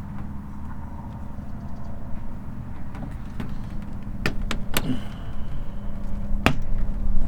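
Four sharp clicks or taps, three in quick succession about four seconds in and one more a couple of seconds later, over a steady low rumble and hum.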